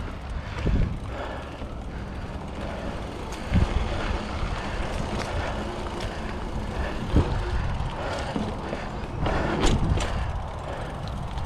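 Mountain bike riding along a dirt singletrack trail: a steady rumble of tyres on dirt and rushing air, with a few sharp knocks and rattles as the bike goes over bumps, the loudest near the end.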